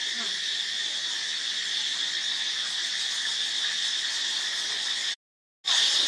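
A steady, high-pitched insect chorus drones evenly throughout. It cuts out abruptly for about half a second near the end, then resumes.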